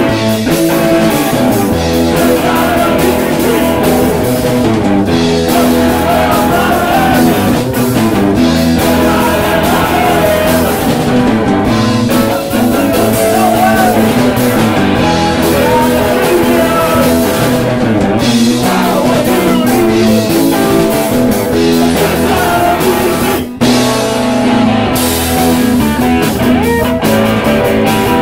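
Punk rock band playing live at close range: electric guitar, drum kit and shouted singing. There is a brief break in the sound about 23 seconds in.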